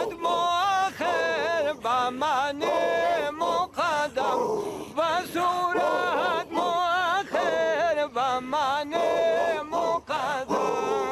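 Men chanting an Islamic devotional chant, their voices carrying a wavering, ornamented melody with short pauses for breath.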